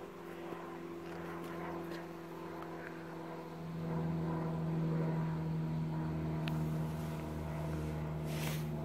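Aircraft flying overhead: a steady engine drone that grows louder about four seconds in, with a brief rush of hiss near the end.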